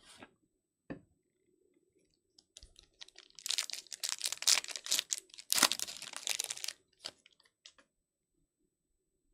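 A trading-card pack's wrapper being torn open and crinkled, a dense crackling that lasts about three and a half seconds after two light clicks.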